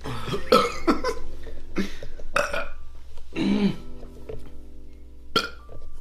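A man burping several times in a row after gulping carbonated drink. The longest and deepest burp comes about three and a half seconds in, and a short one comes near the end.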